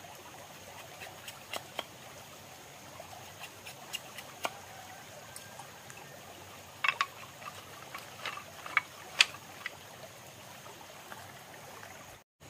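Scattered sharp clicks and taps of bamboo slats being cut and handled with a machete, with a cluster of louder ones about seven to nine seconds in, over the steady trickle of a stream.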